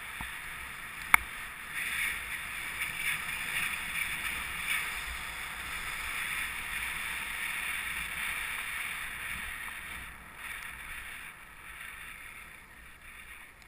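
Skis sliding and carving on groomed snow, a steady hiss that swells about two seconds in and fades over the last few seconds as the skier slows. A single sharp click comes a little over a second in.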